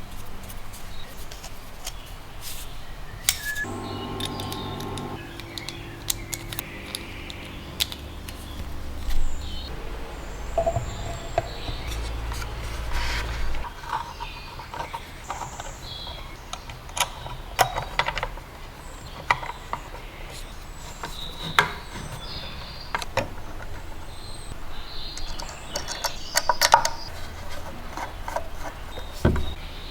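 Irregular clicks, taps and light clatter of small hard parts being handled and set down on a workbench. A brief steady hum comes about four seconds in, and a low rumble runs for a few seconds near the middle.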